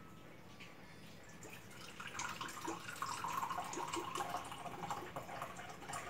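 Dark rum pouring from a glass bottle into a glass measuring cup, starting about two seconds in.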